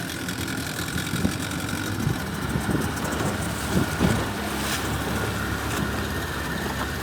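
Motorboat engine running steadily, with a couple of short knocks about one and four seconds in.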